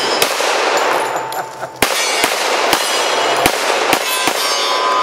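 Suppressed Para Ordnance Black Ops Combat 1911 pistol in .45 ACP, fitted with an AAC Tyrant suppressor, firing about seven shots at an uneven pace. Steel targets clang and ring after the hits.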